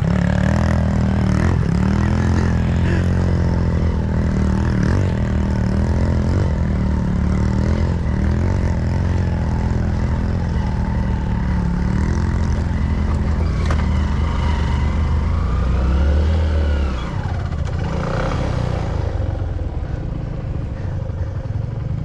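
Dirt bike engine running steadily at low revs on a grassy slope; the engine note drops back about three-quarters of the way through.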